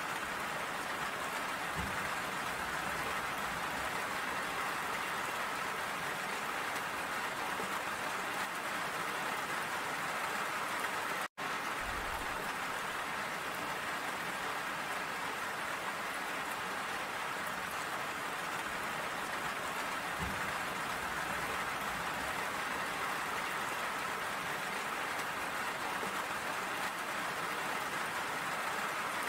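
Steady rain falling, an even hiss of drops, with a split-second gap of silence about a third of the way through.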